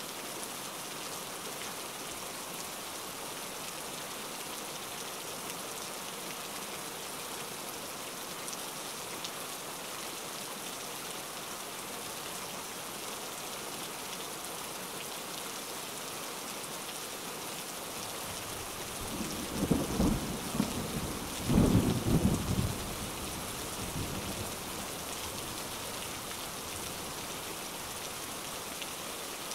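Steady rain falling, with a roll of thunder about two-thirds of the way through that peaks twice before dying away.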